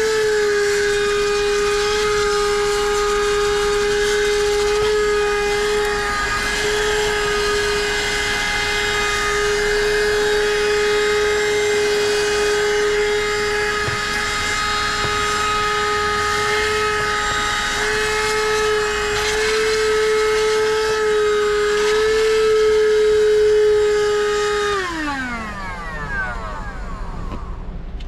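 Handheld 12-volt car vacuum cleaner (a combined vacuum and tyre inflator) running with a steady high whine as it is worked over a floor mat. About three seconds before the end it is switched off and the motor winds down, its pitch falling away quickly.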